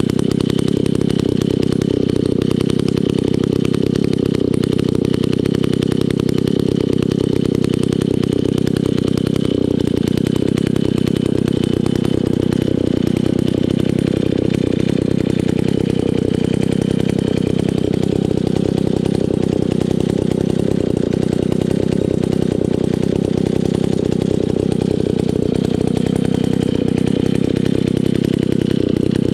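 Alpinia 120 Pro two-stroke chainsaw engine idling steadily.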